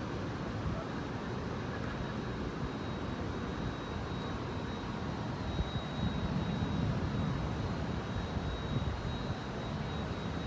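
Steady rainstorm noise over the city: an even, constant rumble with most of its weight in the low end, swelling for a couple of seconds about six seconds in. A faint steady high whine runs underneath.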